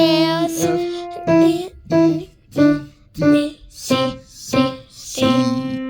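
Music from a children's song. A wavering held note opens it, then single keyboard notes play about every two-thirds of a second, and it ends on a held note.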